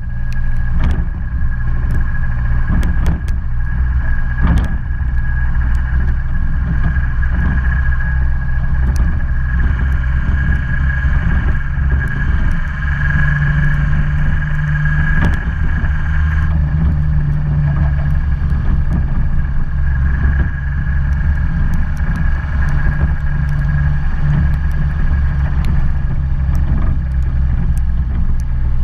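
Car engine running steadily under way, with tyre noise on a wet road, a steady high whine and scattered small clicks.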